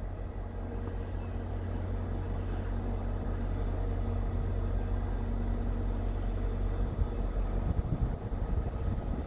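Via Rail F40PH-2 diesel locomotive running with a steady engine hum over a low rumble.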